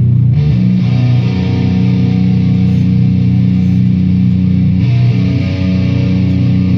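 Loud guitar jam with sustained low chords, changing about half a second in and again near five seconds.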